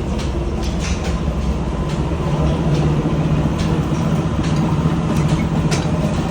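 Tea-processing machinery running: a steady low hum with scattered clicks and rattles, growing a little louder about two seconds in.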